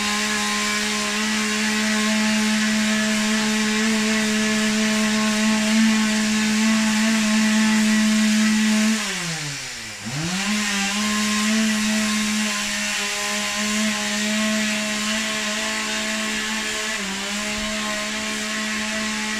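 Chainsaw running steadily at high revs; about halfway through the revs drop sharply and climb straight back up, with a brief dip again near the end.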